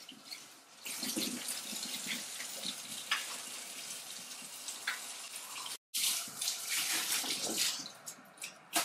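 Steady rushing of running water with scattered light clicks and knocks. It cuts off abruptly once, about six seconds in, then resumes more faintly.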